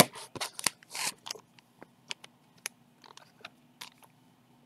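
Clear plastic bag crinkling and rustling as sleeved trading cards are handled and packed into it: a dense run of crackling rustles in the first second or so, then scattered light plastic clicks and ticks.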